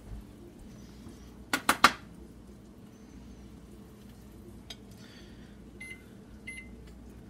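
Kitchen clatter of dishes and utensils: three quick, sharp knocks about one and a half seconds in, then a few light clinks with short ringing near the end, over a steady low hum.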